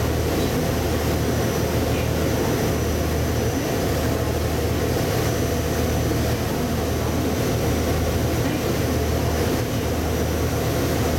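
Passenger ferry under way: its engines give a steady low drone, with a constant rushing noise over it.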